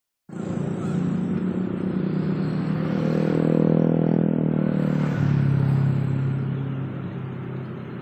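A motor vehicle's engine passing by: its hum grows louder, drops in pitch about five seconds in as it goes past, then fades.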